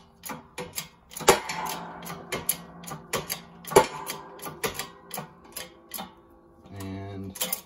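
Hand-pumped hydraulic shop press forcing a U-joint cap out of a Dana 60 axle stub shaft yoke: rapid small metallic clicks, with two sharp pops about a second and a half and about four seconds in, each ringing briefly. Such pops are normal as the U-joint gives under the press.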